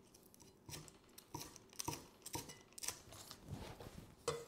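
Chinese cleaver cutting spring onion stalks into short lengths on a wooden chopping block, a light knock of the blade on the wood about every half second.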